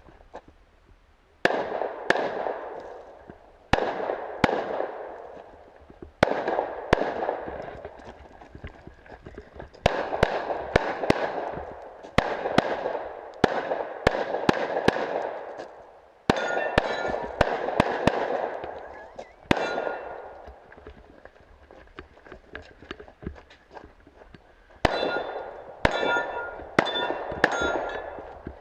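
Pistol shots fired in fast strings of several rounds, with short pauses between strings. Struck steel targets ring with a clear metallic clang after many of the hits, most of all in the later strings.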